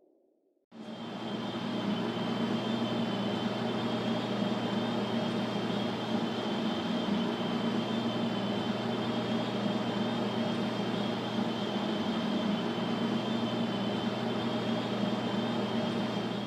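Steady mechanical drone with a constant low hum and a high whine, like a running vehicle or machine. It starts abruptly under a second in and fades out near the end.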